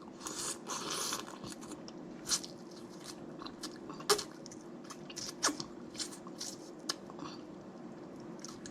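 Snow crab leg shells being cracked and snapped open, a handful of sharp separate cracks spread over several seconds, with soft crunching and chewing between them.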